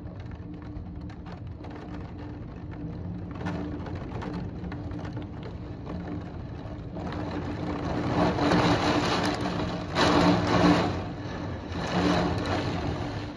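Heavy thunderstorm rain with a steady low mechanical hum underneath. About halfway in, the rushing noise swells into several loud surges.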